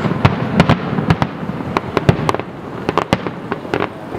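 Aerial fireworks shells bursting, many sharp bangs and pops in quick, irregular succession.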